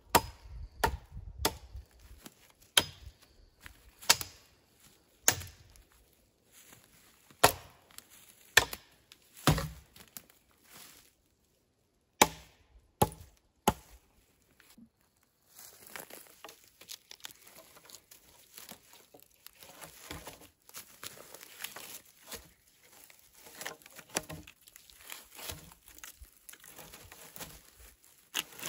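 A hatchet chopping into a log: about a dozen sharp strikes, roughly one a second, with a short pause near the middle. In the second half the chopping stops and quieter continuous crackling and rustling follows, with a few light knocks.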